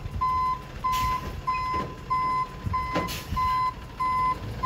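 Flatbed tow truck's reversing alarm beeping steadily, about one and a half evenly spaced beeps a second, over the low rumble of the truck's engine. Two brief hissing noises cut in about a second in and about three seconds in.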